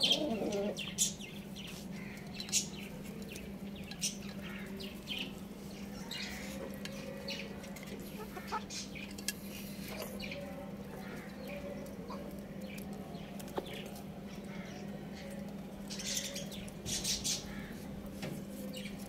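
Chickens feeding: a hen pecking rice from a clay dish makes quick, irregular beak taps, mixed with short chirps and clucks from the birds. A steady low hum runs underneath.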